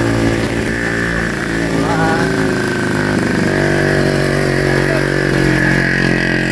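A motorcycle engine running steadily close by, its note stepping up a little about three and a half seconds in.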